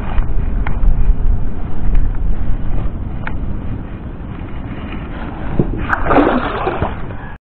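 Wind rumbling on the microphone over lapping water, with a few light knocks. About six seconds in comes a louder burst of camera-handling rustle against clothing. The sound cuts off suddenly near the end.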